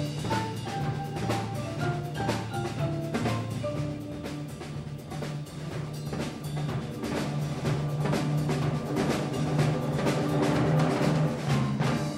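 Percussion music: fast, even drum strokes and pitched percussion over held low notes, stopping together on a final stroke at the very end.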